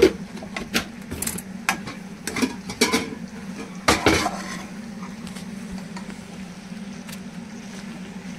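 Slotted spatula scraping and knocking against a kadai as macaroni is stirred: a run of clicks and scrapes, busiest in the first four seconds or so, then fewer. A steady low hum runs underneath.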